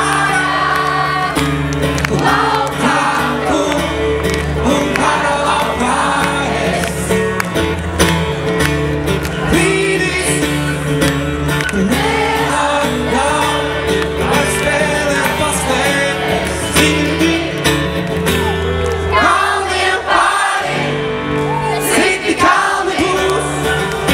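Live rock band playing a song with a male lead vocal sung in Latvian, over acoustic guitar, keyboard, bass guitar and drums. The bass drops out for a moment near the end.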